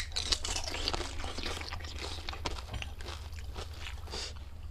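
Crunching and chewing of pani puri, crisp hollow fried puris filled with spiced water, eaten whole, in a dense run of short crackles and wet mouth sounds. A sharp click right at the start.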